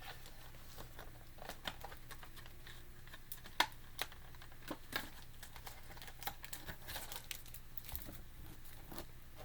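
Plastic and cardboard toy packaging crinkling and rustling with scattered small clicks, as an action figure is worked free of its box; the sharpest clicks come a little after three and a half seconds and at four seconds in.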